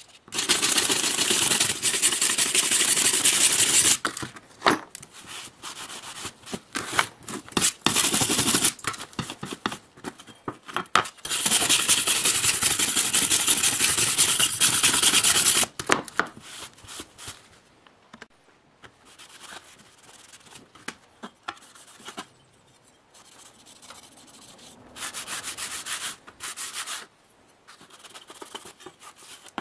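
Sanding and rubbing on the cleaver, in two long loud stretches of about four seconds each with shorter strokes and pauses between, then quieter rubbing near the end.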